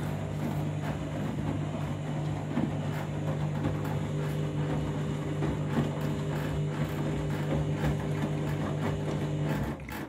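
Candy front-loading washing machine tumbling a wash load: the drum motor hums steadily under the slosh and splash of soapy water and laundry. The motor stops abruptly near the end as the drum pauses between turns.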